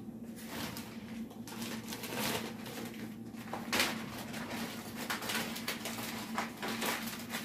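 Soft scrapes and light taps of a kitchen utensil working in a bowl of grated potato mixture as more flour goes in, over a steady low hum.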